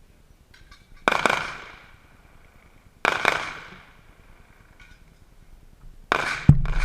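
Gunshots on a shooting range: two single reports about two seconds apart, each with a ringing echo tail, then another shot near the end followed by a heavy low thump.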